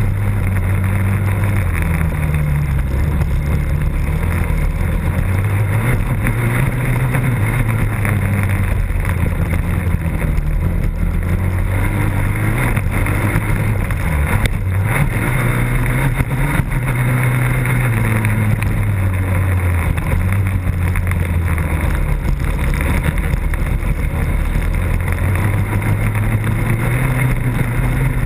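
Motocross race engine heard close up from an on-board camera, running hard with its pitch rising and falling as the rider works the throttle and gears through the corners, over a constant rush of wind and rattle.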